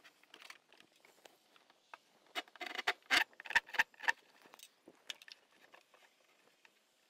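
Hand saw cutting a slot in the edge of a pallet-wood board: about two seconds of quick rasping strokes, roughly three or four a second, starting a couple of seconds in, with light clicks and handling knocks around them.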